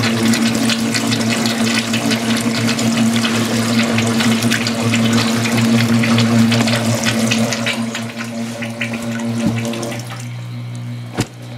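Pump sucking water out of soaked stone-wool grow medium through a hose intake wrapped in a mesh filter bag: a steady motor hum under a gurgling, slurping rush of water and air. The slurping thins out about ten seconds in, as the medium is nearly drained, and a sharp click follows.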